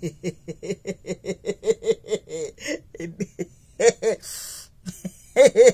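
A woman laughing: a long run of quick, even chuckles, about six a second, then a breath drawn in about halfway and louder laughs near the end.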